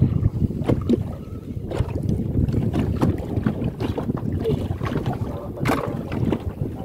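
Wind buffeting the microphone over choppy water beside a small boat, a steady low rumble, with a few short knocks and clicks scattered through it.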